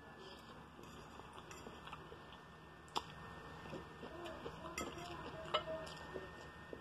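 Metal fork clinking and scraping on a plate while eggs are scooped up, a few sharp clinks, the loudest about three seconds in.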